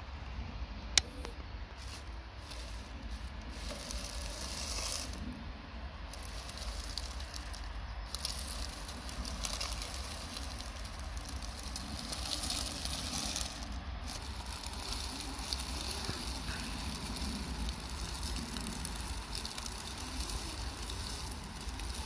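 Dry fallen leaves crackling and rustling under the tyres of a Traxxas TRX-4 G500 scale RC crawler as it creeps over the forest floor, its electric motor faintly whining up and down, with one sharp click about a second in. A low wind rumble sits on the microphone throughout.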